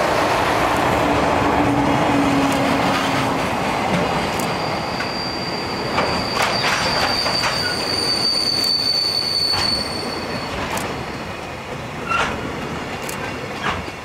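Loaded container wagons of a freight train rolling past at speed: a steady rumble of wheels on rail, with irregular clicks as the wheels cross rail joints. A thin, high wheel squeal sounds for several seconds in the middle, and the rumble eases a little near the end as the rear of the train approaches.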